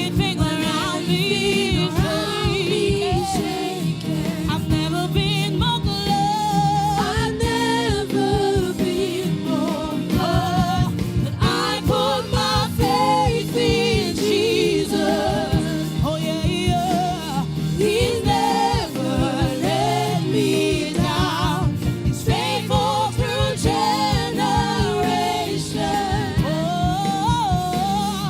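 Gospel choir singing a worship song with instrumental accompaniment, voices carrying a wavering melody throughout.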